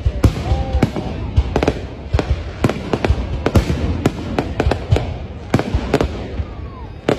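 Fireworks display: aerial shells bursting in rapid succession, several sharp bangs a second over a continuous rumble and crackle.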